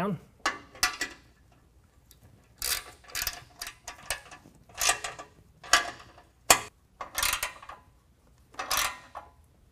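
Hand ratchet with an 18 mm socket clicking in short bursts, about eight, with pauses between, as it tightens the M12 bolts holding a steel bull bar to its uprights.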